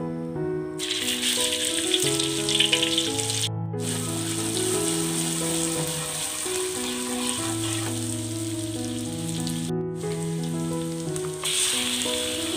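A pounded shallot, garlic and chilli paste sizzling in hot oil in a wok as it is stirred with a ladle, starting about a second in and briefly cut off twice. The sizzle grows louder near the end as raw chicken pieces go into the pan. Background music plays throughout.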